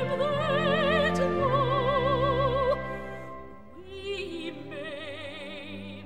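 Operatic singing with wide vibrato over an orchestra. The loud phrase breaks off about three seconds in, and a quieter, higher phrase begins a second later.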